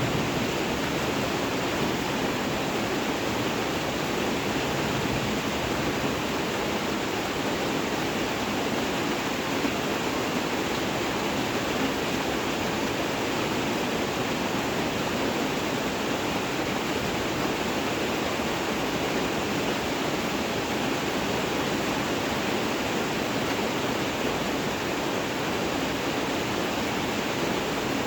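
Steady, unbroken rain noise, even throughout with no separate drop hits or thunder.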